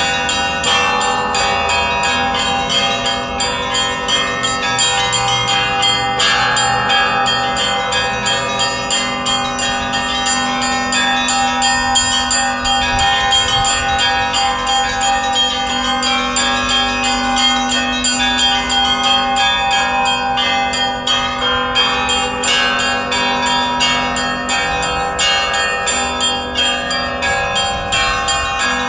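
Russian Orthodox festive church bell ringing (trezvon): several bells of different sizes struck in a fast, continuous peal, the small high bells chiming rapidly over the longer ringing tones of larger bells.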